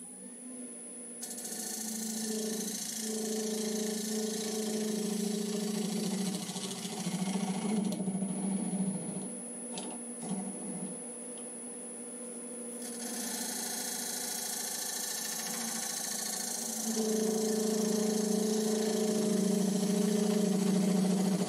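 Wood lathe running with a steady motor hum and a thin high whine while a turning tool cuts inside a spinning sycamore box, making a steady hiss. The cutting stops for a few seconds about midway, with a couple of light clicks, then starts again.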